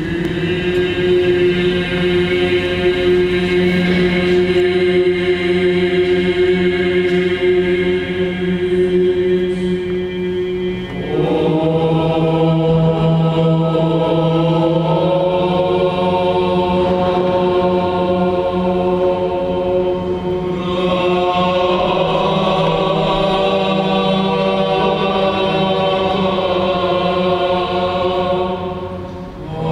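Byzantine chant: voices singing long held notes over a steady low drone (the ison), the melody moving to a new note about eleven seconds in and again about twenty-one seconds in.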